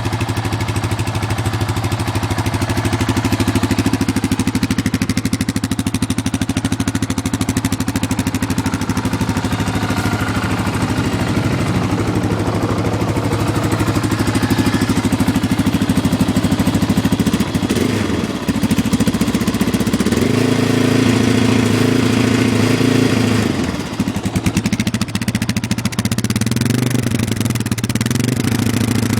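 Yamaha Raptor 660 ATV's single-cylinder four-stroke engine running at a steady idle, with the revs raised and dropped a few times in the second half. The owner hears a weird sound in it that suggests something is wrong, but can't say what.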